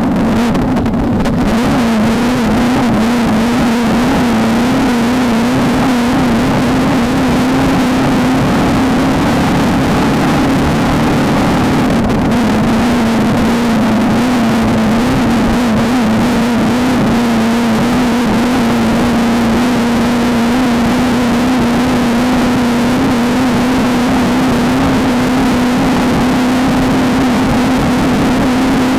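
Off-road race car engine holding steady high revs, its drone wavering slightly in pitch. A constant rough noise of the car running over desert terrain lies under it.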